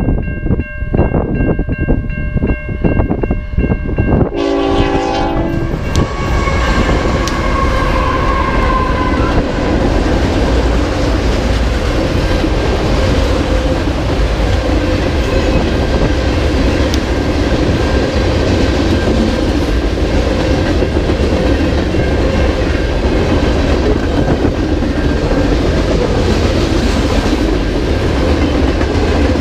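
A level-crossing warning bell rings. About four seconds in, a freight locomotive's horn sounds briefly as the train reaches the crossing. Then a long manifest freight train rolls past with a steady rumble of wheels on rail and the clickety-clack of the cars.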